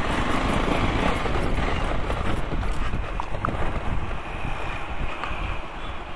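Motorcycle riding along a dirt road, its engine running under a steady rumble of wind buffeting the microphone.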